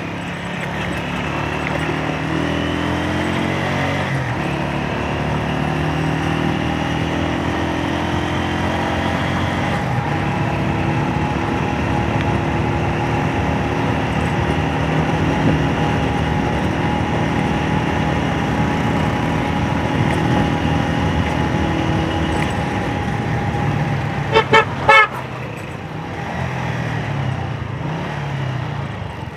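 Honda CG 125's single-cylinder four-stroke engine running steadily under way, picking up speed in the first few seconds. About 24 seconds in, a horn beeps several times in quick succession, and the engine sound is quieter after it.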